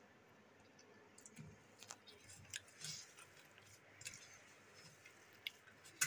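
Boiled potato being mashed by hand in a stainless-steel bowl: faint, irregular squelching with light clicks of fingers against the steel, and one sharper click near the end.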